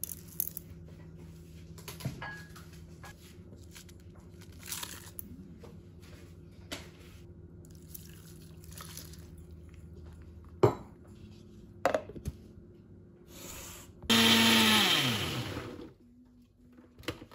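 Electric mixer grinder with a steel jar running for about two seconds on a wet mix of tomatoes, spices and water, then its motor winding down with a falling whine once it is switched off. Before it come a few light clinks and two sharper knocks.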